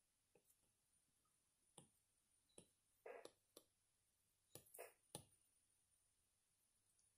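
Near silence broken by about eight faint, light clicks scattered from half a second to five seconds in: an Apple Pencil tip tapping on the iPad's glass screen.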